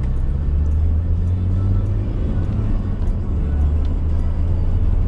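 Steady low engine and road rumble inside the cab of a truck driving on a highway.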